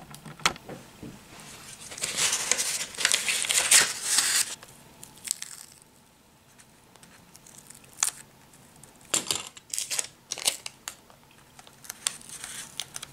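Clear sticky tape pulled off its roll and torn, with wrapping paper crinkling as it is pressed onto a cardboard roller. There is a long rasp about two seconds in, then a few short crackles and taps, and another rasp near the end.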